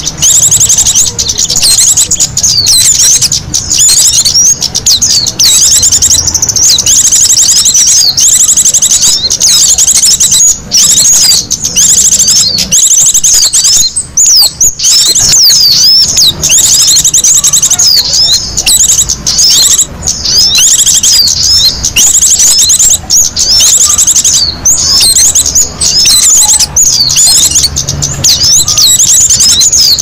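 Bird-lure recording of many small songbirds chattering: dense, loud, rapid high-pitched chirps and trills overlapping without pause, thinning briefly about halfway through.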